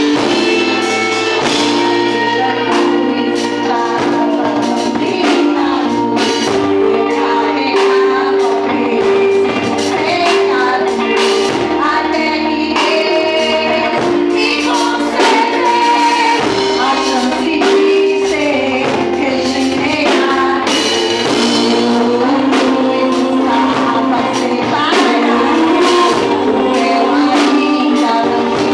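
Live Christian worship band with singers performing a song: sung vocals over band accompaniment with regular percussive hits.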